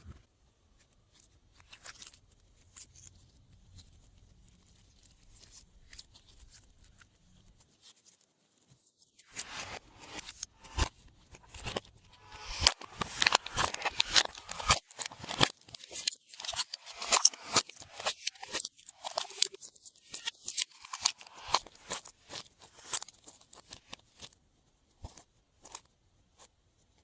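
Glossy slime being handled: after a quiet start, dense sticky crackling clicks and pops begin about a third of the way in and thin out near the end.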